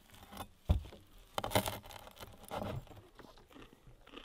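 Serrated bread knife scraping mushroom pâté across crisp toasted sourdough, with crunchy scraping of the toast and a single sharp knock about a second in.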